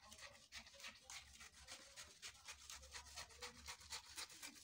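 Scissors snipping through pattern paper, trimming off a strip along the edge: a faint, quick run of even cuts, about four a second.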